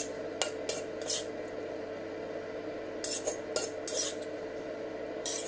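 Metal spatula scraping and clinking against a wok in a series of short strokes as stir-fried green chilli is scooped out into a bowl, over a steady hum.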